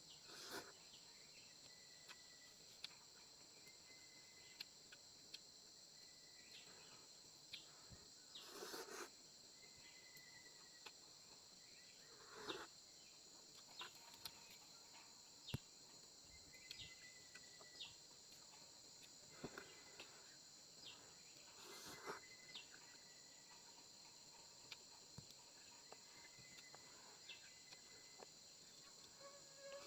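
Faint, steady, high-pitched chorus of insects, with scattered soft clicks and a few short rustles.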